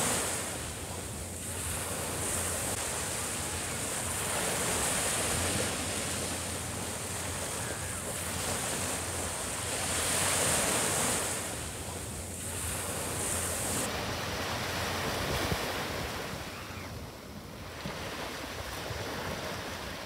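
Small sea waves breaking and washing up a sandy beach, the surf swelling and fading every five seconds or so.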